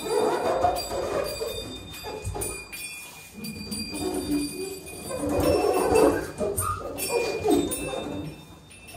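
Free improvised music: irregular, wavering pitched phrases that swell near the start and again about five to six seconds in, over faint steady high ringing tones.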